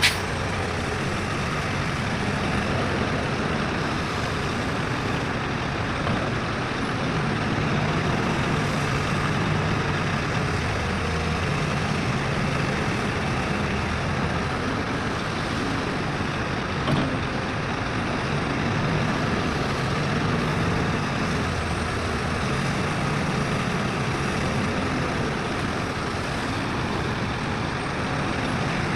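Heavy diesel construction machinery running steadily at a work site, with a low engine hum, a sharp click right at the start and a brief knock about two-thirds of the way through.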